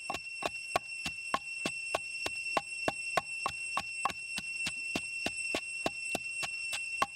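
Wooden pestle pounding chilies, salt and lemongrass in a wooden mortar: a steady beat of dull knocks, about three a second. A steady high-pitched tone sounds behind the knocks.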